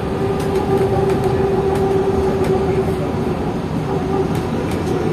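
Cabin noise inside a moving bus: a steady rumble of road and running gear, with a steady hum that fades out near the end and light rattles.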